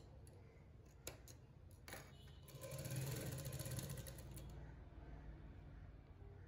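A full-size black 'umbrella' straight-stitch sewing machine stitching through thin fabric. A few light clicks come first, then the machine's fast, even rattle starts about two and a half seconds in and eases off toward the end.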